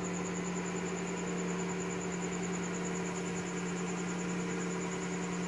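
A steady machine hum with one strong low tone and a faint high-pitched whine above it, unchanging throughout.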